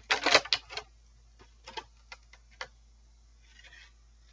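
Clear plastic packaging crinkling and crackling as it is handled, loudest in the first second, then a few scattered clicks and a soft rustle near the end.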